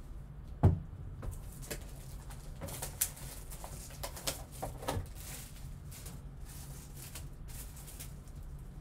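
Trading card box being handled on a tabletop: a thump about a second in, then rustling and light taps as the cardboard box is turned over and opened.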